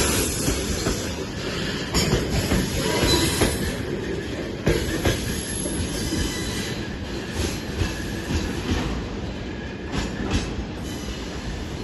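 Freight train of tank cars rolling past, steel wheels knocking over rail joints at uneven intervals with a thin high wheel squeal now and then; the rolling noise slowly fades.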